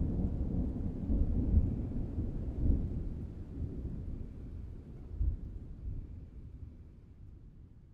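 Thunder rumbling low, swelling a few times and then dying away over several seconds.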